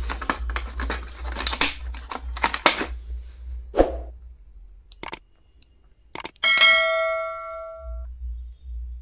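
Stationery items being handled, with rustling and clicking for about three seconds and a few separate knocks, then a sharp metallic clang about two-thirds of the way in that rings on and fades over about a second and a half.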